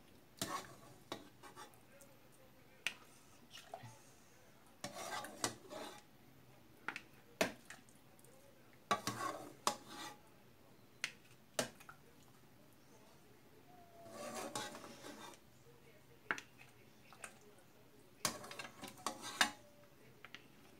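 Metal ladle knocking and scraping against a soup pot as cassava soup is ladled out, in scattered clinks and short noisy spells.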